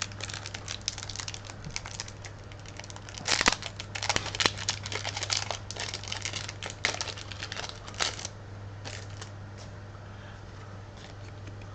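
Foil booster pack wrapper crinkling and rustling as it is handled and torn open, with sharp crackles for about eight seconds, then only a few faint clicks over a steady low hum.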